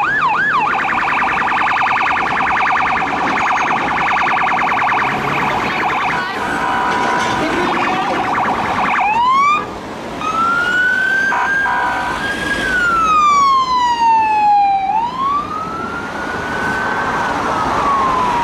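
UK police car siren on a BMW 3 Series estate patrol car, switching tones: a fast yelp at the start, then a rapid pulsing tone for several seconds, then slow rising and falling wails from about nine seconds in.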